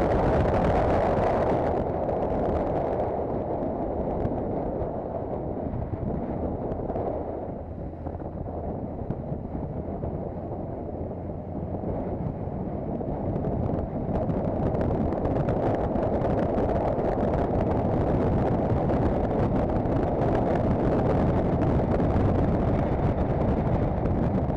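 Wind rushing over the microphone, with engine and road noise from a Honda CBF1000 motorcycle being ridden along an asphalt road. It grows quieter for several seconds in the middle, then rises again.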